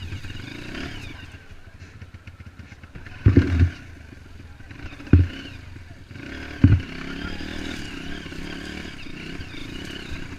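Dirt bike engine running on a trail ride, with three heavy dull thumps spaced a second or two apart through the middle.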